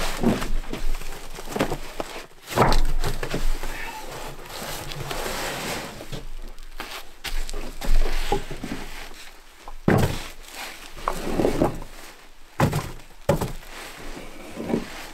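Packs of dog food being handled and set down on wooden porch boards: irregular thunks and knocks with rustling between them, the heaviest thuds about two and a half, eight, ten and nearly thirteen seconds in.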